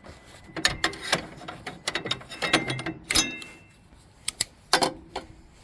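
Half-inch ratcheting wrench clicking in irregular bursts as it backs out the last bolt on a snowblower's friction wheel, with a few separate sharp metallic clicks near the end.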